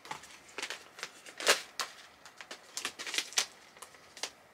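Stand-up pouch of loose-leaf tea being handled and opened, crinkling and crackling in irregular sharp clicks, the sharpest about a second and a half in.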